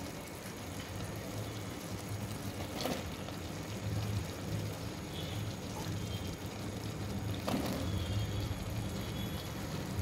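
Cut eggplant pieces dropped by hand into a pot of wet tomato-potato curry, landing with a soft thud about three seconds in and again near the end, over a steady low hum.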